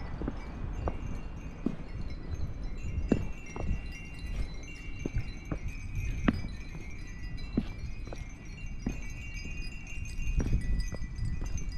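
Wind chimes ringing, several high tones overlapping and lingering. Beneath them, footsteps tap evenly, about one every two-thirds of a second.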